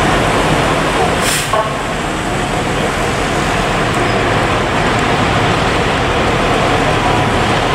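Diesel fire engines running as they roll slowly past in a line, with a short sharp hiss about a second in.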